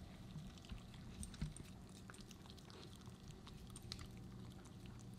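Pomsky licking and chewing frozen strawberry cubes on a plate: faint, scattered wet clicks and ticks. A low steady hum runs underneath.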